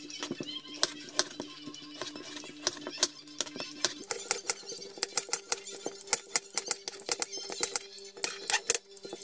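Kitchen knife chopping raw potatoes on a wooden cutting board: a quick, irregular run of sharp knocks as the blade cuts through and hits the board, several a second.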